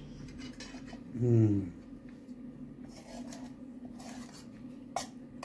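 Eating jhol momo with a spoon and fork: cutlery scraping and tapping in a ceramic bowl of soup, with a short hum from the eater about a second in that falls in pitch, and a sharp clink of metal on the bowl near the end.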